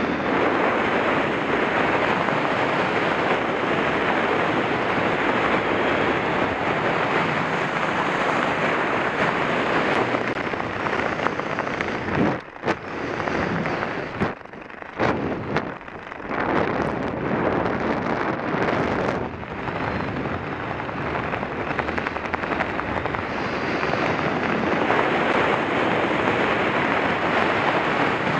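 Wind rushing over a skydiver's camera microphone: a loud, steady roar of wind noise that drops away briefly a few times in the middle.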